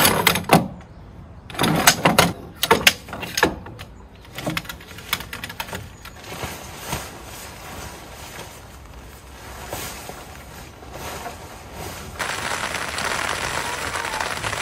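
The large fabric shell of a Zed Korea Wild Dome EX tent rustling and snapping in quick, irregular bursts as it is gathered up for folding, then handled more quietly. About twelve seconds in, a steady rain sets in abruptly.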